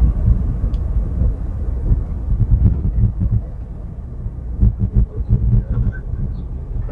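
Low rumble inside a car's cabin as it drives slowly over a rough dirt road, with irregular low thumps as the car jolts over bumps.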